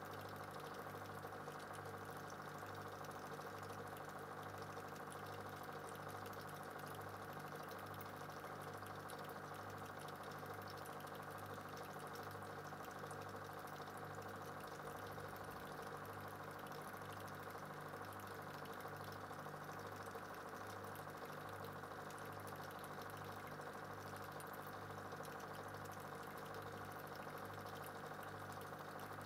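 A small machine humming steadily, its low note throbbing slowly and regularly.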